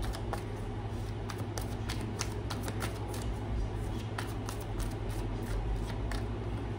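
A deck of tarot cards being shuffled by hand: a run of irregular card clicks and flicks, over a steady low hum.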